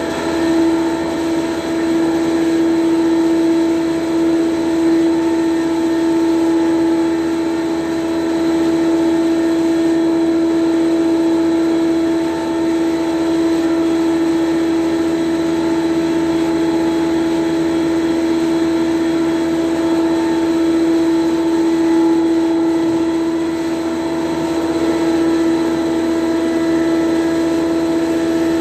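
Restored Colombo ACS 500 mm (20-inch) cast-iron thickness planer running, a loud steady machine hum with one strong unchanging tone and fainter overtones.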